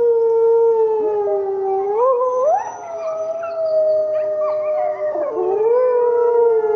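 A pack of red wolves howling together: several long, drawn-out howls at different pitches overlap, each sliding up or down in pitch now and then.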